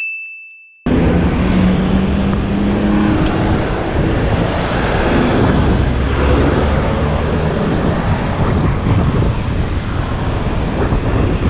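Wind buffeting an action camera's microphone on a moving bicycle, a steady loud rush mixed with street traffic noise. A passing engine hums low in the first few seconds. Right at the start, a single high ringing tone sounds briefly in a short gap.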